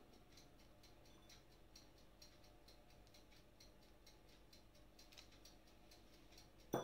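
Near silence: room tone with faint, regular ticking, about two ticks a second.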